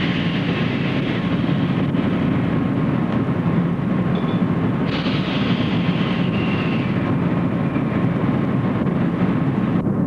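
Particleboard plant machinery running: a steady, loud low rumble with a faint constant tone, and a high hiss that fades out a few seconds in and comes back for about two seconds in the middle.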